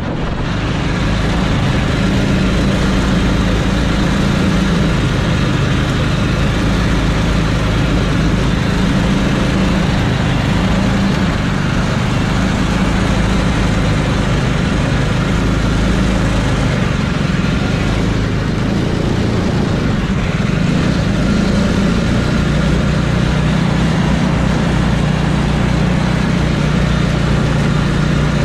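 Engine of a small car running at a fairly steady speed while driving over grass and dirt, its pitch stepping up and down a few times, over a steady rush of wind and road noise.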